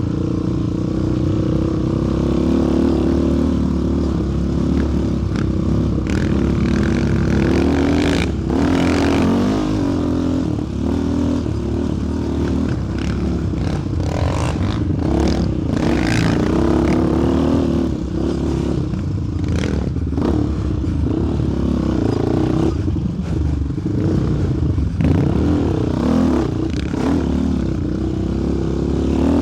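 Sport quad's single-cylinder four-stroke engine running under constantly changing throttle, its pitch rising and falling as it is ridden over a trail, with scattered knocks and clatter.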